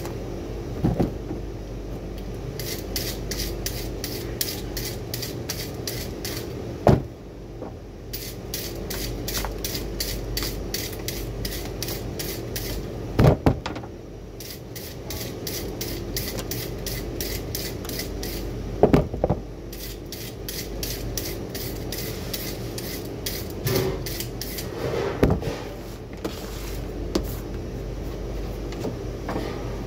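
A carrot being shredded into strips with a hand-held peeler, in runs of quick repeated scraping strokes broken by short pauses, with a few sharp knocks.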